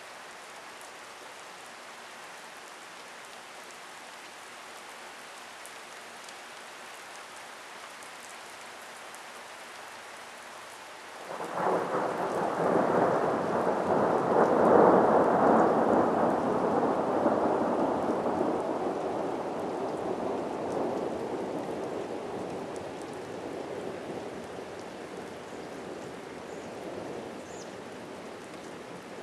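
Steady rain, then about eleven seconds in a thunderclap breaks in suddenly. Its rumble is loudest a few seconds later and fades slowly over the next fifteen seconds.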